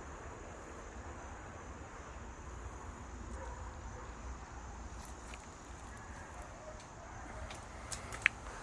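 Walking uphill on a forest trail: quiet footsteps and rustling over a low steady rumble, with one sharp click near the end.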